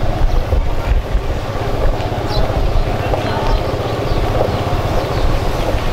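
Motorcycle engine running at low speed under heavy wind rumble on the microphone, a steady low roar.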